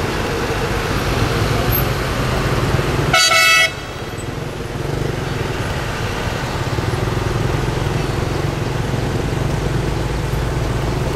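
Steady low rumble of a moving vehicle's engine and road noise, with one short vehicle horn honk about three seconds in, lasting about half a second.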